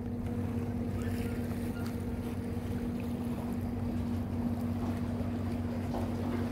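A steady low engine hum over a faint even hiss of wind and water.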